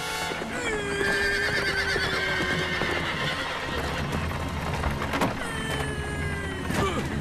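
A horse whinnies twice, each a long call that slowly falls in pitch, over hoofbeats clopping on dirt.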